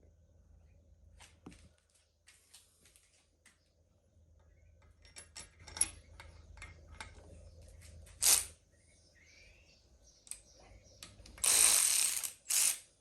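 Hand tools and steel bolts clicking and clinking against metal while the cylinder head bolts of a Ford 4.0 L SOHC six are fitted. There is one sharp knock about eight seconds in, and a longer rasping ratchet-like run near the end.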